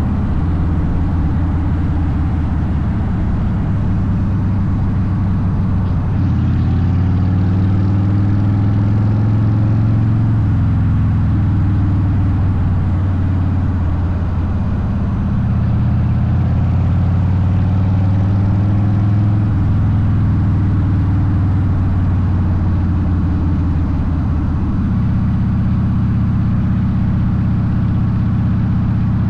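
Harley-Davidson Softail Deuce's V-twin running through Vance & Hines aftermarket pipes while riding. Its low note rises and falls with throttle and gear changes, about a quarter of the way in and again at middle and near the end.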